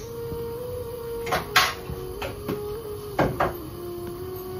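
Kitchen handling noises while seasoning meat in a pressure cooker: a handful of short knocks and clinks of a spoon and spice containers, over a steady hum.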